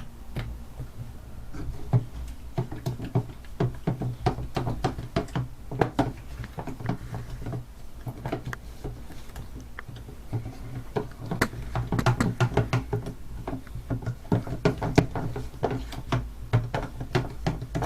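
A spoon stirring slime glue in a container, with irregular clicks and knocks as it scrapes and taps the sides, over a steady low hum.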